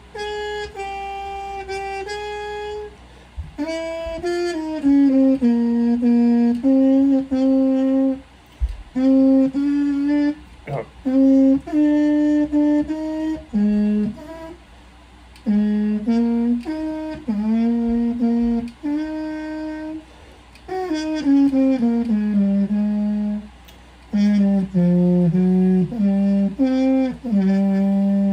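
Solo trumpet playing a practice piece: phrases of short and held notes with brief breathing gaps between them, mostly in the instrument's lower register. Some notes are taken up an octave from the low notes that are written.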